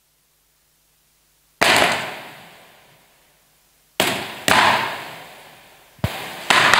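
Large card signs dropped one by one onto a stage floor: five sharp slaps, the first about a second and a half in, then two close pairs, each dying away over about a second.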